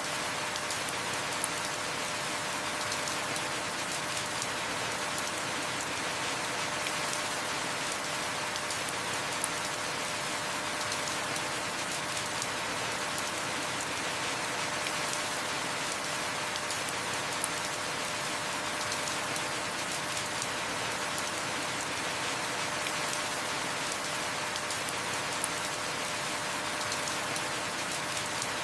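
Heavy rain falling steadily, with the fine ticks of individual drops striking a surface and a slightly sharper drop tick about every eight seconds.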